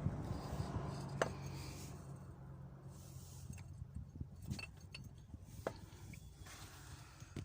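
Hand tools and metal engine parts clinking and tapping: scattered short, light metallic clinks. A low hum fades out over the first few seconds.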